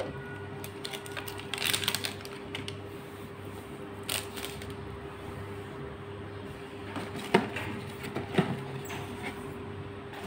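Unboxing handling noise: a plastic bag of screws crinkling and a coiled cable and power adapter being set down on a hard surface, with a rustle about two seconds in and a few sharp clicks later. A steady low hum runs underneath.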